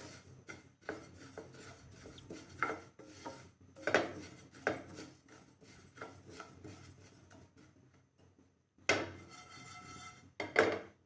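A wooden spatula stirs and scrapes dry cumin, fennel and carom seeds around a nonstick frying pan in irregular raspy strokes, as the seeds are briefly dry-roasted. Louder scrapes come about four seconds in and again near the end.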